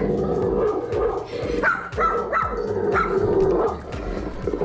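A dog barking, a quick run of barks in the middle over a steadier lower sound.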